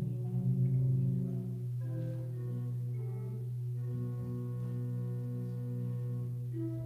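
Slow instrumental music: held notes and chords that change every second or so over a long sustained low bass note.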